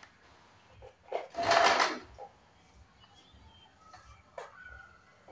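Small electric sewing machine running in one short burst of stitching about a second in, lasting under a second. A few light clicks and knocks follow.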